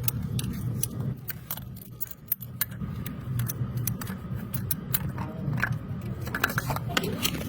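Light metallic clicks and clinks from tools and parts being handled, scattered irregularly over a low, steady background hum.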